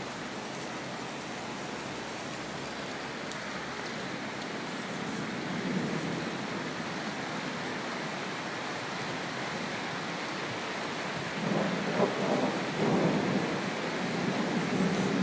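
Steady rain hissing, with low rolls of thunder rumbling in about a second in, again after about eleven seconds, and near the end.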